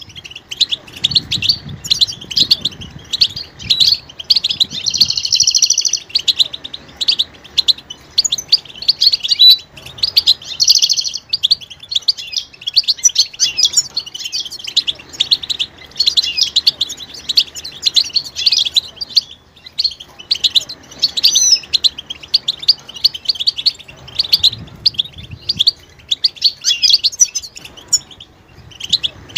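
Several European goldfinches calling together in a dense, unbroken chatter of quick high chirps and short twittering trills.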